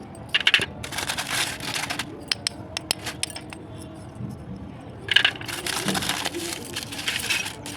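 Roasted brown clay bitten and crunched close up, twice: each time a sharp crack followed by about two seconds of crisp, crackling crunching.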